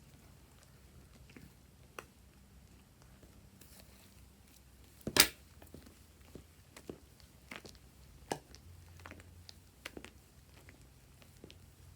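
Slime being handled close to the microphone: scattered sticky crackles and small clicks, with one much louder sharp snap about five seconds in.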